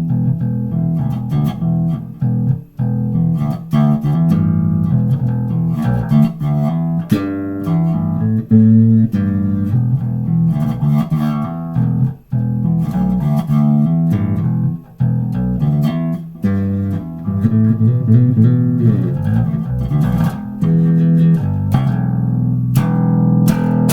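Electric bass guitar played with a clean tone, all effects bypassed: a continuous run of plucked notes and riffs with a few short breaks.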